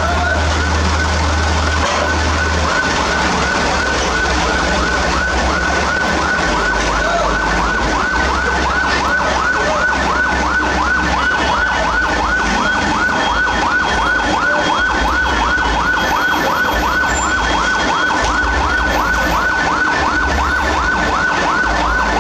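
A siren cycling rapidly in a fast, even repeat, over a low rumble.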